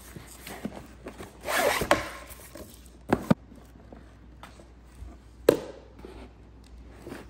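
Rigid cardboard lid of a Starlink box sliding off, a rasping rub about a second and a half in, followed by a few sharp taps and knocks of the packaging as it is opened.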